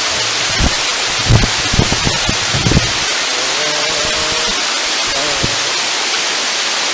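Dunn's Falls waterfall rushing steadily, with a cluster of low thumps about a second in.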